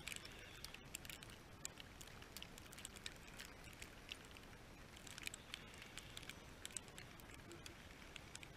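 Near silence: a faint hiss with light, scattered ticks.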